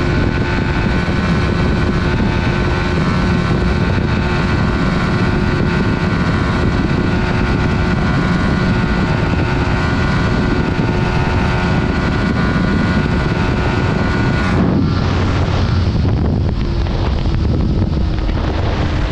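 Suzuki GSX motorcycle riding along with its engine running steadily under heavy wind noise on the microphone. About fifteen seconds in the sound changes abruptly and the engine tones fade back under the wind.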